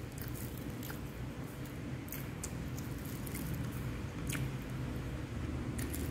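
A person chewing a mouthful of rice and food, with scattered small wet mouth clicks and smacks, over a steady low hum.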